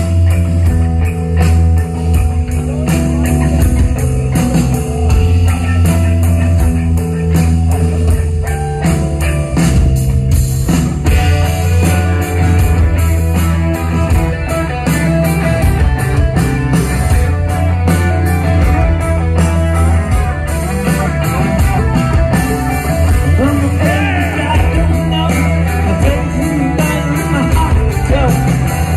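Live rock band with electric guitars, bass guitar and drum kit playing loudly through a venue PA, recorded from the audience. The sound grows fuller and denser about eleven seconds in.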